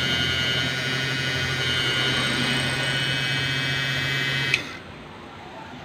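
Small electric motor of a homemade tire trimmer running steadily with a low hum and a high whine, spinning a small rubber tire against the cutter. A bit over four seconds in there is a sharp click and the motor sound cuts off.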